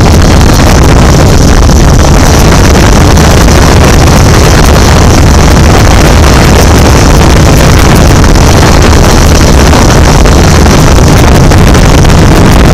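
Camera drone's motors and propellers buzzing steadily and loudly as the drone climbs, picked up by its onboard camera, with wind rushing over the microphone.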